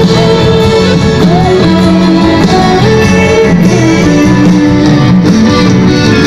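Progressive rock band playing an instrumental passage live, heard from among the audience: guitar and violin lines over bass and drums, loud and steady.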